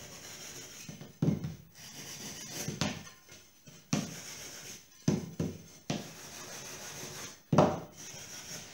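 Kitchen scouring pad scrubbed hard over a wooden picture frame in irregular strokes, several starting with a sharp knock, roughing up the old finish before painting.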